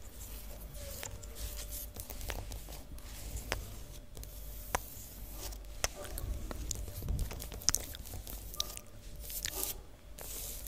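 Close-miked ASMR mouth sounds: irregular wet clicks and pops, scattered unevenly with short hissy stretches between them.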